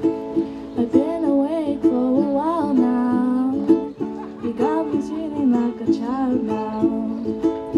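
A ukulele strummed steadily, with a girl's voice singing a melody over it from about a second in.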